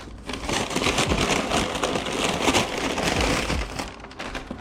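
Takeout bag and food packaging rustling and crinkling as the food is unpacked and unwrapped, with many small crackles and clicks.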